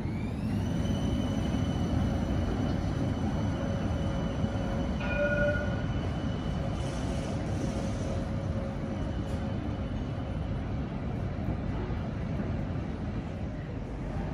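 Light rail tram running past close by, its electric drive giving a rising whine in the first second as it pulls away, over a steady rumble of wheels on the rails. A short higher tone sounds about five seconds in.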